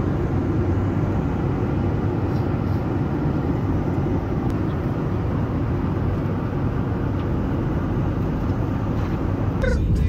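Steady roar of a Boeing 737-8 airliner in cruise, its jet engines and airflow heard from inside the passenger cabin.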